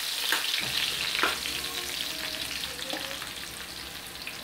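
Sliced onions sizzling in hot cooking oil in a metal wok as they sauté toward translucent. A metal spoon scrapes and clinks against the pan a few times in the first second or so, then the sizzle goes on alone and gets gradually quieter.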